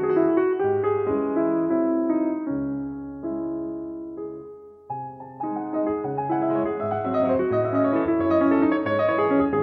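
Piano music: slow held chords that fade almost out about four and a half seconds in, then a busier passage with higher notes.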